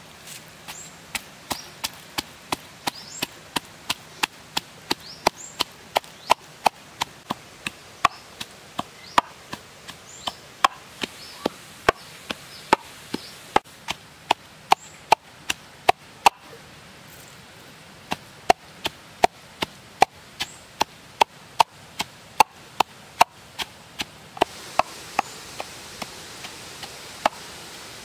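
Pestle pounding red chili peppers in a mortar: steady dull strikes about two a second, with a short pause about two-thirds of the way through.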